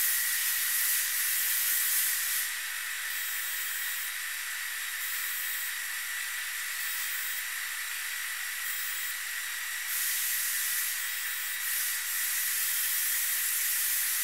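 High-frequency induction heater running with a steady high whine over a hiss while it heats a bandsaw blade tooth to red heat for hardening. The hiss drops back a little about two and a half seconds in and comes up again about ten seconds in.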